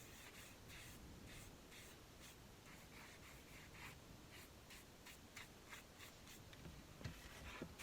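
Faint, repeated scrubbing strokes of a small sponge spreading glue over a table tennis rubber sheet and blade, about two to three strokes a second, with a couple of light clicks near the end.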